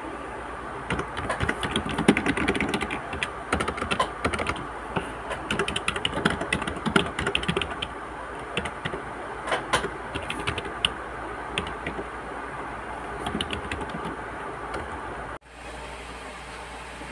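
Typing on a typewriter-style keyboard with round keycaps: an irregular run of quick key clicks that starts about a second in and thins out later, over a steady hiss. Near the end the typing stops and only the hiss is left.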